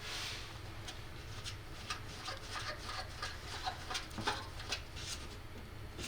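Thumbscrews being turned out by hand from the back of a desktop computer case: a series of faint, irregular ticks and light metal scrapes.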